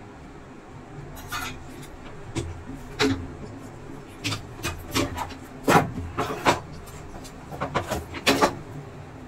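Irregular knocks, clicks and rubbing of plastic and circuit-board parts as an opened induction cooker's board and copper coil plate are handled and shifted, loudest a little past halfway and near the end, over a steady low background noise.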